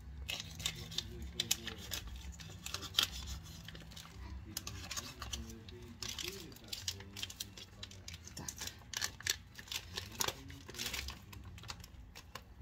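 Kitchen handling noises: irregular clicks, taps and crinkling as a raw steak is handled in a glass baking dish, with faint voices in the background.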